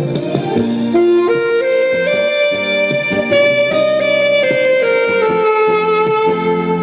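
Alto saxophone playing a ballad melody over an accompaniment: a quick rising run of notes, then long held notes.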